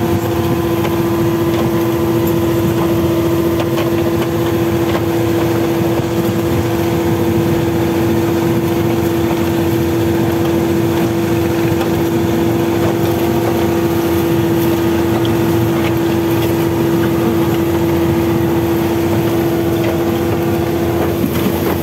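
Outrigger fishing boat's engine running steadily under way: a constant drone with one strong steady hum, over the rush of water and wind.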